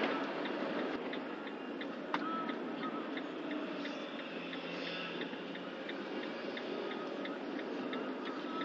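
Turn-signal indicator ticking evenly, about three ticks a second, over steady engine and road noise inside a van's cab while the van takes a turn.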